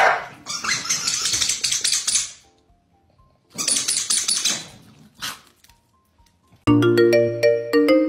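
Corgi snarling in two harsh bursts, the first about two seconds long and the second shorter, over faint background music. About two-thirds of the way in, a bright marimba-like tune comes in loudly.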